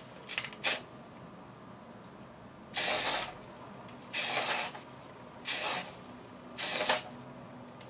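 Aerosol spray paint can spraying in four short hissing bursts, each about half a second long, spaced about a second apart.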